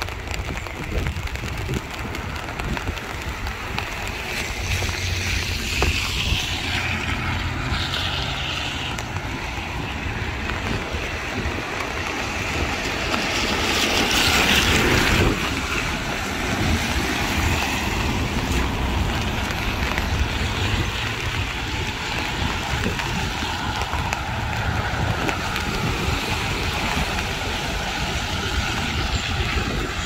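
Heavy rainforest rain falling steadily: an even hiss over a low rumble, swelling louder for a moment about halfway through.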